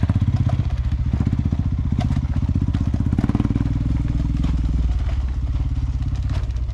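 Motorcycle engine running under load up a rough dirt climb, a steady low pulsing exhaust note, with scattered clatter and knocks as the bike rides over stones.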